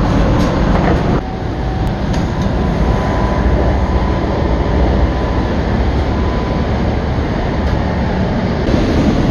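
Running noise of a moving Class 321 electric multiple unit heard from inside the carriage: a steady low rumble of wheels on the track. The level dips slightly about a second in.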